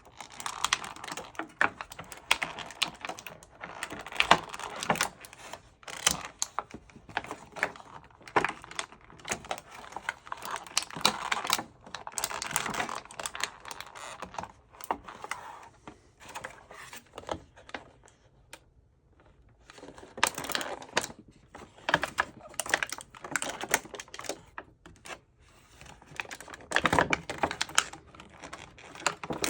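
Stiff plastic toy packaging being worked open by hand: crinkling and clicking in dense, irregular bursts, with a short lull about two-thirds of the way through.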